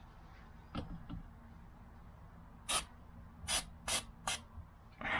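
Aerosol air intake cleaner sprayed onto a Toyota's removed idle control valve in four short bursts, to clear carbon deposits that cause a rough idle. A couple of light clicks come about a second in.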